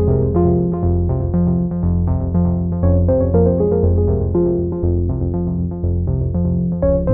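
Background music: a steady instrumental keyboard tune with a bass line.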